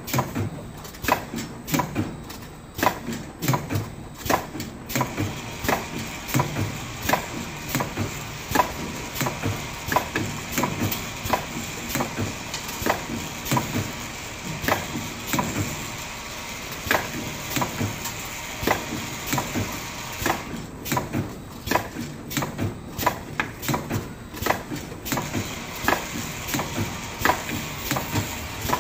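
Automatic explosion-proof bottle filling and capping machine running: a continual run of mechanical clicks and knocks, about one to two a second, over a steady machine noise. A faint steady high hum joins about five seconds in.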